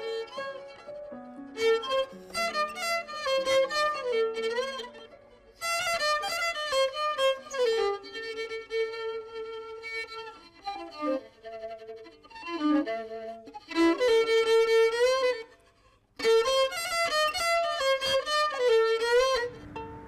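Violin playing a melody in phrases, with sliding notes and vibrato. It breaks off briefly about six seconds in and again about sixteen seconds in.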